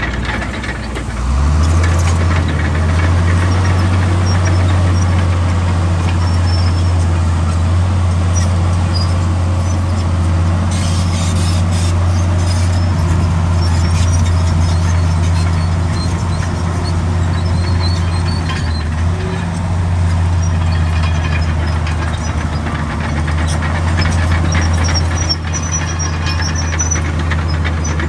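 Heavy diesel earthmoving machinery running steadily under load, a deep engine drone that swells about a second in, with high metallic squeaks and clanks over it.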